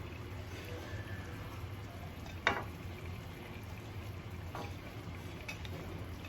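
Chicken cooking in green chili paste in a pan: a low steady sizzle, with a stirring utensil knocking sharply against the pan about two and a half seconds in and lightly twice more near the end.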